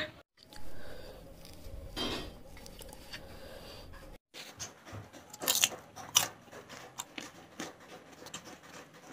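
A person chewing a mouthful of paneer paratha close to the microphone, with many short, irregular wet mouth clicks and smacks in the second half.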